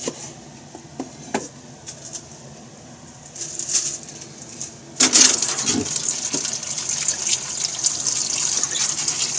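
Kitchen tap turned on about five seconds in, water running hard into the sink. Before that there are a few light knocks.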